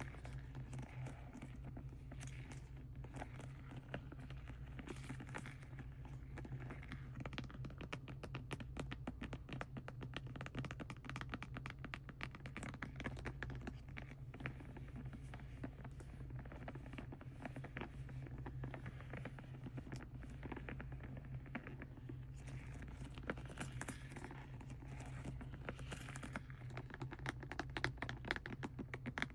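Close-miked fingernails tapping and scratching on plastic paint packaging: rapid light clicks and scratches, over a steady low hum.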